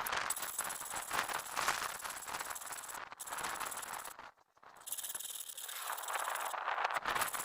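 A file rasping over the cutter teeth of a chainsaw chain in repeated hand strokes, sharpening the chain, with a short pause a little over four seconds in.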